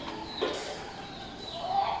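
A rooster starting to crow near the end, its call rising in pitch and swelling, after a faint single click about half a second in.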